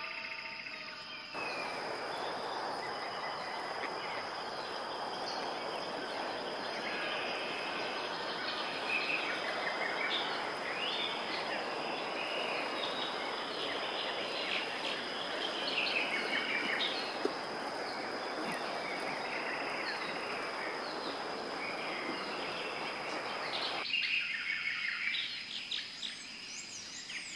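Many small birds chirping and calling over a steady background noise, with a constant high thin tone. Near the end the background noise drops away, leaving the chirps on their own.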